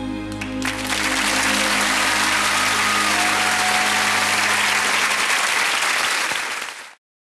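Studio audience applauding at the end of a pop ballad. The applause breaks out about a second in over the song's last fading chord, holds steady, and cuts off suddenly near the end.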